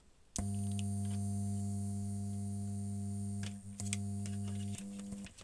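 A steady low-pitched hum with several overtones starts abruptly about half a second in, dips briefly, and stops shortly before the end.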